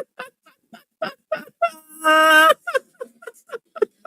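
A man's voice in short, repeated wordless cries, with one drawn-out wail about two seconds in: a dismayed fan's reaction to a missed penalty.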